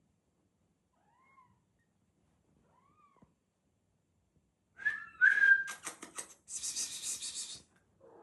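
Newborn kittens mewing: two faint, thin mews, then from about five seconds in loud, shrill, harsh crying that goes on in long stretches.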